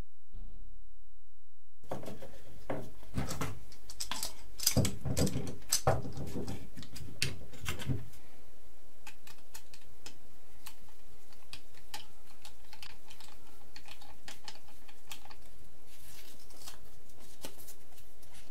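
Irregular small clicks and taps of hand work on the build, dense for several seconds, then thinning out to scattered, fainter clicks.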